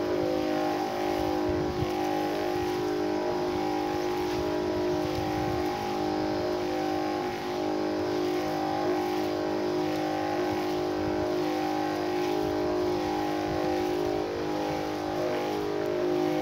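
Electric knapsack sprayer's battery-driven pump motor running steadily, a constant hum made of several even tones, while it sprays insecticide.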